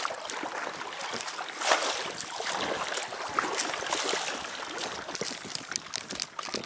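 A packraft paddle dipping and pulling through lake water: irregular splashing and dripping, with one louder splash a little under two seconds in.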